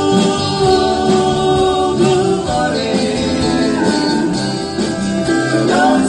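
Country band music with guitar and sustained sung vocals, sounding like several voices together.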